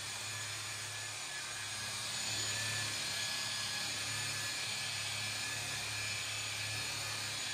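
Electric rotary polisher running steadily with a wool buffing pad on freshly clear-coated paint, a motor whine over a low hum that grows a little louder about two seconds in. The pad is saturated with buffing compound while cutting the clear coat to a gloss.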